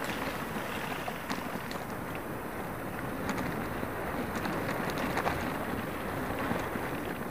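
Brompton folding bike riding over a loose gravel track: steady tyre and wind noise, with a few sharp rattles and knocks as the bike jolts over bumps.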